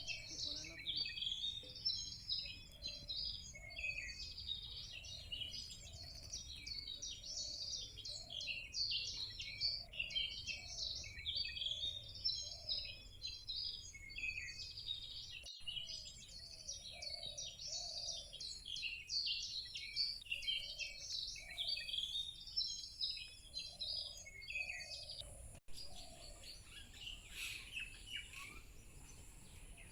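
Several small birds chirping and twittering in quick, overlapping calls, with a lower call repeating about once a second beneath them. The chirping thins out near the end.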